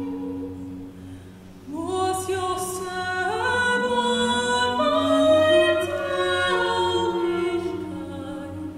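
Choir singing a slow folk song: a low sustained drone holds steady while a solo melody enters about two seconds in with an upward scoop and climbs step by step.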